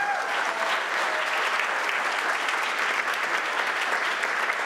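A roomful of guests applauding, the clapping steady and dense, with one short rising-and-falling call at the very start.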